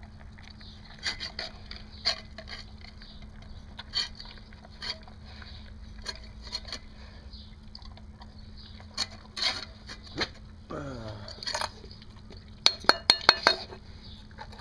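Dog eating from a stainless steel bowl: scattered clinks and scrapes of its teeth and muzzle against the metal as it chews. A quick run of sharper metallic clinks comes near the end, as the bowl is held and tilted by hand.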